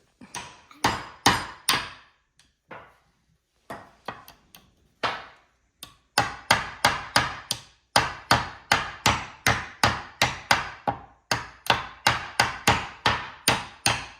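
Hammer driving a nail into wood: a few spaced blows at first, then about six seconds in a steady run of about three strikes a second, with a brief pause near the end.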